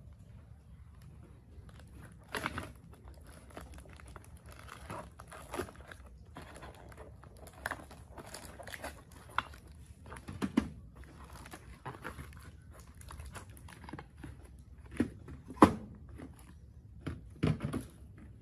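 Cardboard parcel being handled and opened, its box and packing tape crinkling and tearing, with now and then a sharp knock as small engine parts are set down on the workbench.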